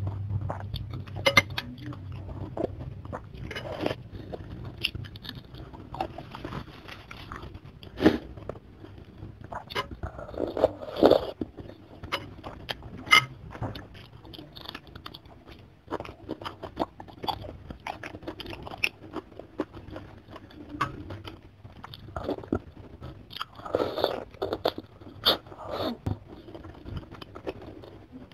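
Close-miked eating sounds: wet chewing and crunching with irregular clicks and smacks, as soup noodles are slurped near the start and a raw green bird's-eye chili is bitten and chewed.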